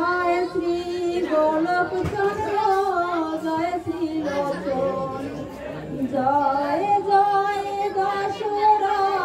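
A young woman singing solo a Bengali devotional hymn of praise to Harichand Thakur, the melody rising and falling, then holding one long note over the last few seconds.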